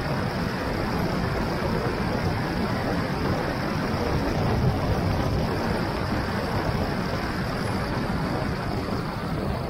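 Steady rush of wind over an action camera's microphone together with bicycle tyre noise on asphalt during a fast downhill descent.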